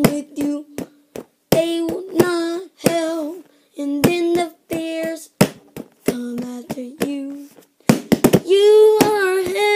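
A child singing wordless notes over a steady beat of sharp taps, about three a second. Near the end a quick run of taps comes just before a long held note.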